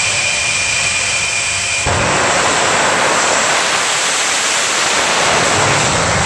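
Jet-powered semi truck's jet engine running with a high whine, then abruptly surging to a louder, full rushing roar about two seconds in as the truck launches down the drag strip and passes close by.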